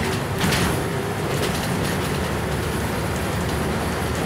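Scania N94UB East Lancs Esteem single-deck bus under way, heard from inside at the front: steady engine and road noise, with a few short clatters of the body and fittings in the first second or two.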